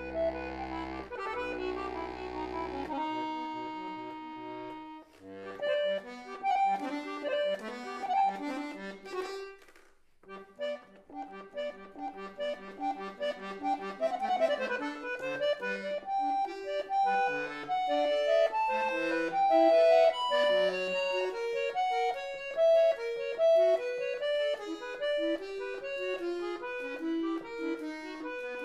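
Solo harpsichord playing: chords ringing for the first few seconds, then quick runs of plucked notes. There is a brief near-pause about ten seconds in.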